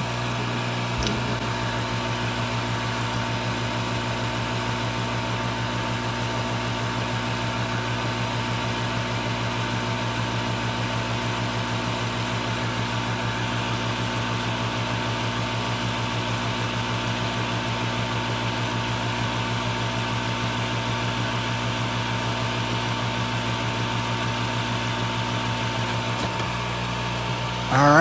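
Hot air rework gun blowing steadily to desolder BGA memory chips: a constant fan whir with a low hum and a faint steady high tone.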